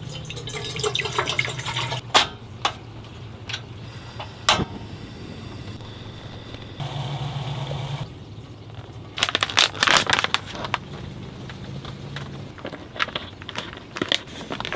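Water poured from a plastic bottle into a stainless steel percolator coffee pot, followed by a few sharp clicks. Later comes the crinkling of a plastic coffee bag being handled and torn open. A low steady hum runs underneath.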